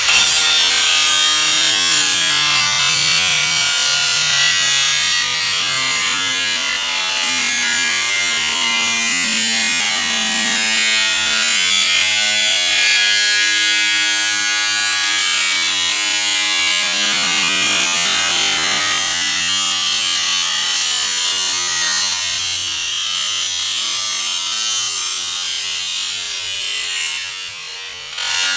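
Angle grinder with a cutoff wheel cutting through the sheet-metal body of a washing machine: a loud, steady hissing whine whose pitch shifts as the wheel bites. It eases off briefly near the end and then picks up again.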